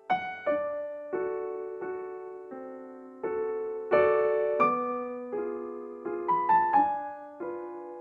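Background music: a slow piano piece, single notes and chords struck one after another and left to fade.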